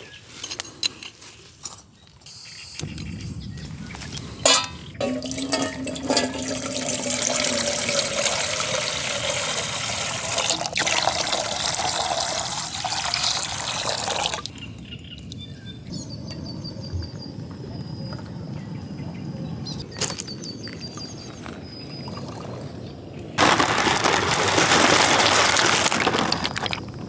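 A few clicks and knocks, then water poured steadily into a metal cooking pot on a camping gas stove for about ten seconds, stopping about halfway through. A quieter steady hiss follows, and near the end there are a few seconds of loud splashing as pasta goes into the water in the pot.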